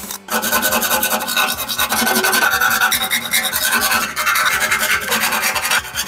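Hand deburring tool scraping around the edge of a freshly drilled hole in a steel jerry can, a fast continuous metal-on-metal scrape, with short breaks about four seconds in and near the end.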